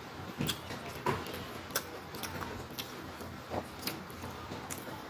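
Rice being eaten by hand from a paper wrapper: irregular sharp clicks, one or two a second, from the fingers working the rice and paper and from the mouth while chewing.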